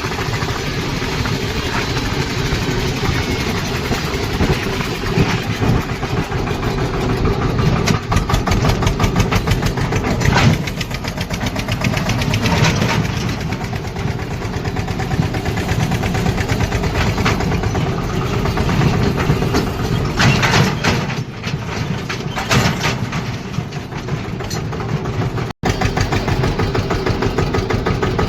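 Eicher 241 tractor's single-cylinder diesel engine running steadily with a fast, even thudding beat, with a few louder knocks and rattles here and there, as from the tractor and trolley going over bumps.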